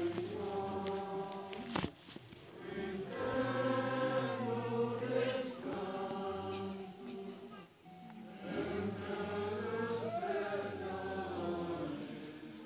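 A group of voices singing a slow hymn together in long held notes, with brief pauses between phrases about two and eight seconds in.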